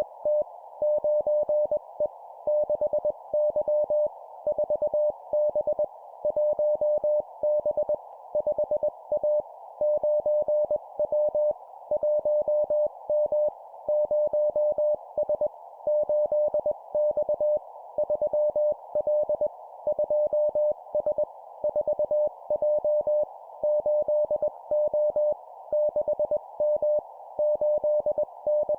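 Morse code (CW) at 20 words per minute: a single steady tone keyed on and off into dots and dashes, sent as short two-character letter and number groups with a brief pause after each. A steady hiss runs underneath.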